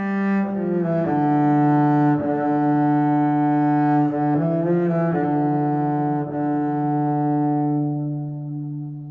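Background music: a slow melody of long held notes that changes pitch about once a second and fades near the end.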